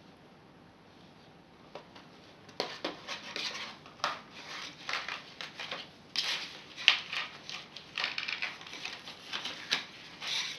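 Toy packaging being handled and opened: a run of quick clicks and rustles starting about two and a half seconds in.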